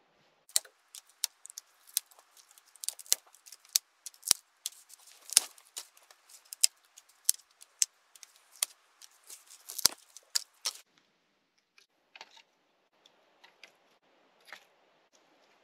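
Dry brush sticks being snapped and handled by hand: a rapid, irregular run of sharp cracks and snaps, thinning after about eleven seconds to softer crackling and rustling as the sticks are laid into a dirt pit.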